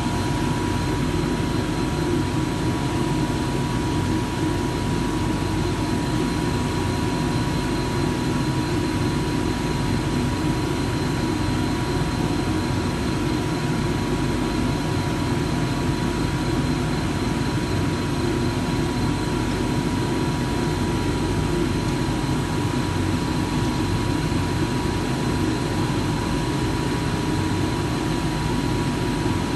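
Timesaver wide-belt grinding and deburring machine running steadily: a continuous mechanical rumble with a constant high whine.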